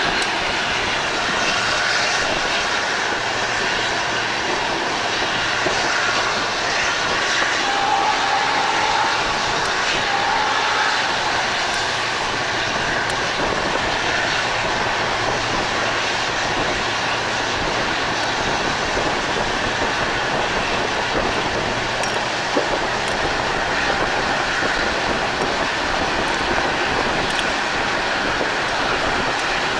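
A train running on the line: a steady, unbroken rush of wheel and air noise, with a faint click about 22 seconds in.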